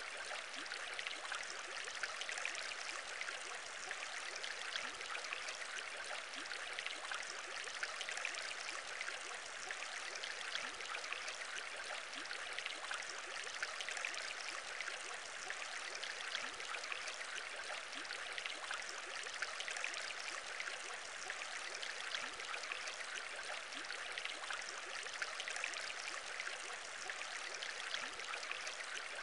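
Aquarium water bubbling continuously: a dense, even stream of small bubble pops that never breaks or changes.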